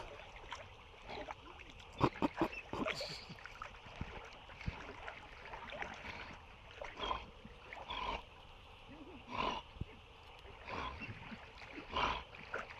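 A Newfoundland dog swimming and towing a canoe through shallow water: splashing, with a cluster of sharp splashes about two seconds in, then short bursts about once a second.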